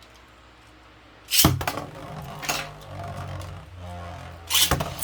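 Beyblade spinning tops launched into a plastic stadium about a second and a half in, then spinning with a steady hum and clacking against each other, with a hard, loud collision near the end.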